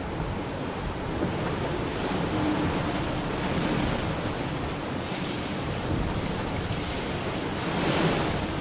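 Sea rushing past the hull of a racing sailboat under way, with wind on the microphone; the noise swells briefly about five and eight seconds in.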